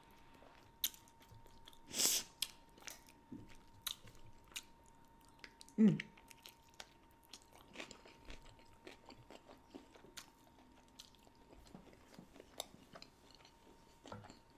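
Close-miked chewing and mouth sounds of someone eating a shredded brisket taco: scattered wet clicks and smacks. The loudest bite or crunch comes about two seconds in.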